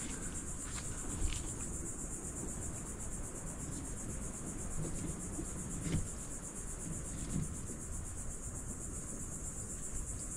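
Insects trilling in a steady, high-pitched chorus, with a few faint clicks.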